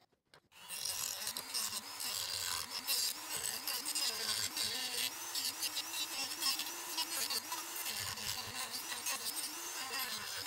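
Dremel rotary tool with a diamond cutting wheel cutting into the plastic case of an old Apple USB charger. It is a steady high grinding whine whose pitch wavers as the wheel bites into the plastic, and it starts about half a second in.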